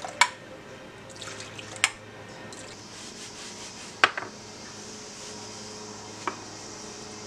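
Warm milky liquid poured from one ceramic bowl into another to cool it, with soft splashing and four sharp clinks of the ceramic bowls knocking on a stone countertop, the first and third the loudest.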